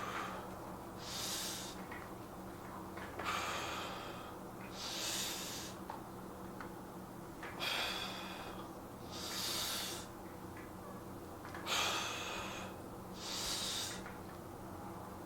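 A man breathing slowly and deeply, four breath cycles each heard as an in-breath followed by an out-breath about every four seconds, as he recovers from a weight-training session.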